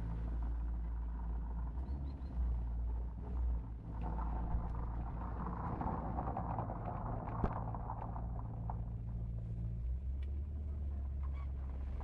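Maserati Quattroporte's V8 running at idle, a steady low rumble, as the car creeps forward. Its tyres rolling over cobblestones add a rustling noise through the middle.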